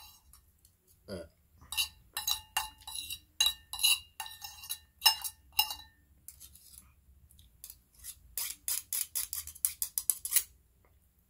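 Metal fork and spoon clinking and scraping against a dish of noodles: sharp, ringing clinks a few at a time, turning into a fast run of clinks near the end.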